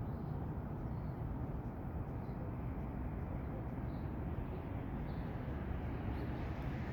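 Steady low rumble of outdoor city ambience heard from a high balcony, with a few faint, short high chirps scattered through it.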